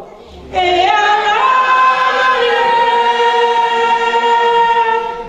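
A woman singing unaccompanied into a microphone. Her phrase comes in about half a second in, steps up in pitch, and holds one long note for about three seconds before breaking off.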